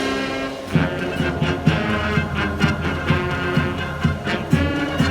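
High school marching band playing: brass holding chords and melody over drum strikes about twice a second.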